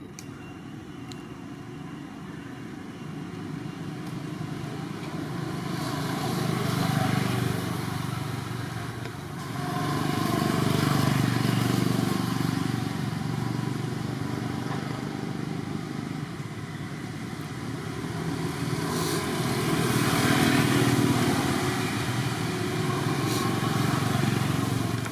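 Motor vehicles passing by, the engine and tyre noise swelling and fading in several waves, loudest about ten and twenty seconds in.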